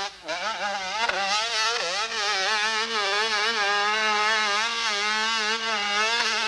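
Dirt bike engine revving hard under load as the bike climbs a steep dirt hill. Its pitch wavers up and down with the throttle, dropping briefly at the start and again about two seconds in.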